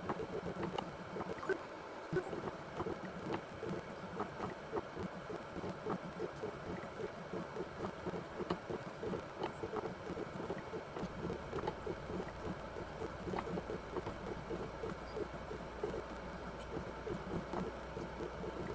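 Benchtop robotic blacksmithing machine running through its forming cycle: motors and press working with a dense, uneven stream of small clicks and knocks. A low steady hum joins about eleven seconds in.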